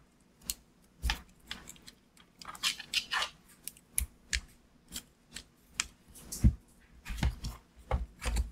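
Electric screwdriver parts being handled and fitted back into the plastic housing: irregular clicks, taps and scrapes of plastic and metal, with a few dull knocks in the second half.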